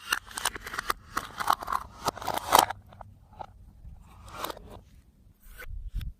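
Slime being worked by hand, with dense crackling and clicking for the first couple of seconds, then sparser clicks and a low thump near the end.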